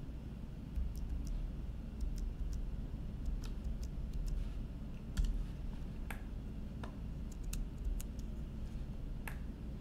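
Irregular clicks and taps of a computer keyboard and mouse, about one or two a second, over a steady low hum.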